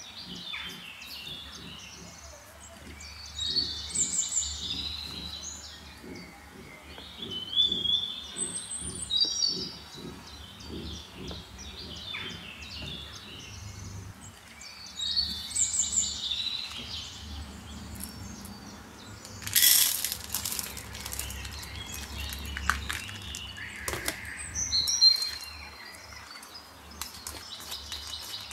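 Small birds chirping and singing in short high phrases, several times over. Through roughly the first half, a soft rhythmic scraping comes from a spatula stirring cake batter in a glass bowl.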